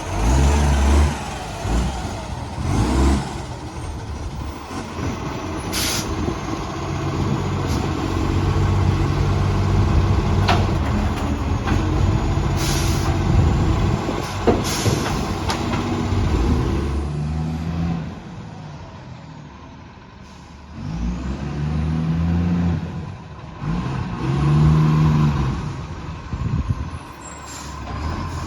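Side-loader garbage truck's diesel engine revving up and down through a leaking exhaust, with a few short air-brake hisses in between.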